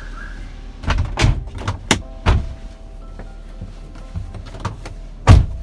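A series of knocks and clunks inside a car's cabin as the driver works the controls before pulling away, the loudest thump near the end, over a steady low hum.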